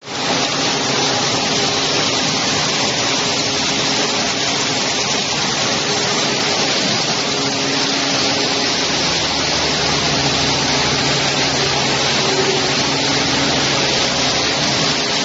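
Plastic pelletizing line running: a twin-screw extruder and the cooling fans over its strand conveyor make a steady, loud rushing noise with a faint motor hum underneath.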